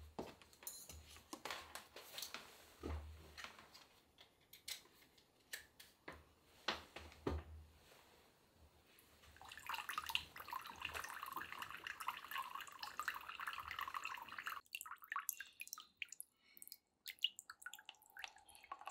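Water trickling and dripping down a stone-tile wall into the water of a glass aquaterrarium, fed by a small submersible pump. Scattered drips at first, then from about halfway a steady trickle that cuts off suddenly a few seconds later, followed by a few more drips.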